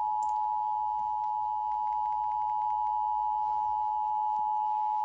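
Emergency Alert System attention signal: a loud, steady two-tone alert sound of two close pitches just under 1 kHz, held without a break.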